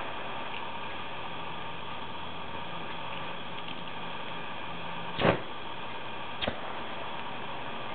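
Steady background hiss, with a sharp click from a handheld cigarette lighter being worked about five seconds in and a smaller click a second later.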